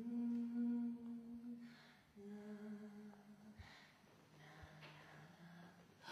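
A woman humming a slow tune: three long held notes, each a little lower than the one before, with short pauses between them.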